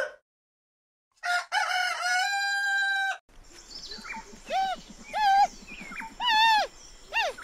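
A rooster crows once, a long call starting about a second in. From about three seconds in, a giant panda gives a string of short bleating calls, each rising and falling in pitch, about one a second.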